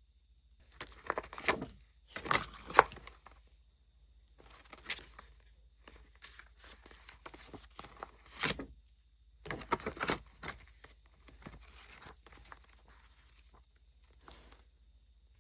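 Packaging being handled, torn open and crinkled by hand, in irregular bursts of rustling, the loudest a sharp one about three seconds in.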